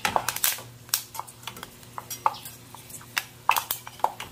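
Irregular sharp clicks and crackles from a pan of pork skins frying in very hot lard.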